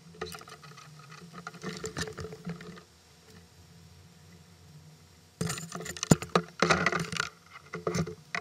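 Knocks and rattles of a wheeled kayak cart being handled and fitted against a plastic kayak hull, in two bursts: one at the start and a busier one from about halfway on.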